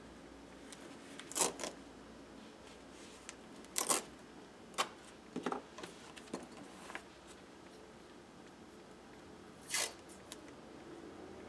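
Red washi tape pulled off its roll and pressed onto a paper journal page: a handful of short rasps and rustles, the loudest about a second and a half in and near the end.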